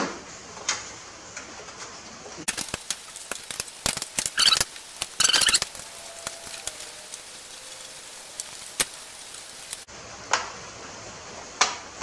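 Irregular light clicks and knocks of hands working on a Briggs & Stratton lawn tractor engine's top cover and parts, louder in a couple of quick clusters midway. A faint even hiss cuts in about two seconds in and stops abruptly near ten seconds.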